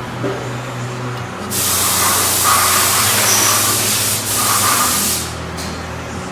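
Loud hiss of a compressed-air blast, lasting about four seconds with a short break near the end, over the steady hum of a running machine.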